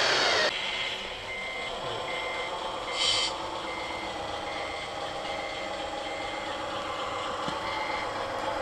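Reversing alarm beeping from a radio-controlled Caterpillar 740 articulated dump truck model as it backs up a dirt pile to tip its load: short high beeps at one pitch, about three every two seconds, over a steady motor hum. A brief louder burst of noise comes about three seconds in.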